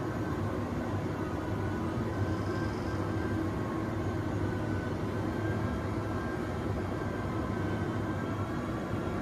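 Steady mechanical drone with a low hum and a few faint steady tones: a fire-rated roller curtain's electric motor winding the curtain up, mixed with the hum of factory machinery.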